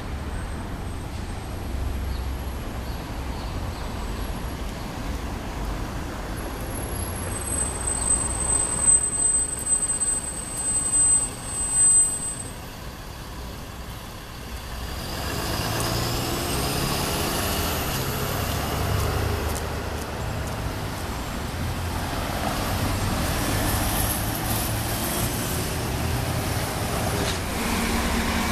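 Street traffic: cars and buses running past, with a steady low rumble. There are a few louder peaks and a thin high squeal about ten seconds in, and a faint rising whine about halfway through.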